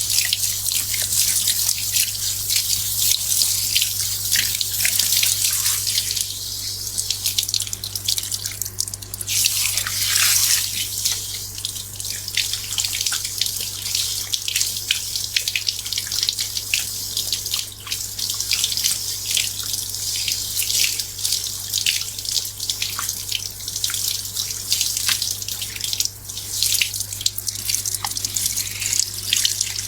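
Water running and splashing during a hair wash at a wash basin: a steady hiss full of small crackling splashes and drips, a little fuller for a few seconds near the middle.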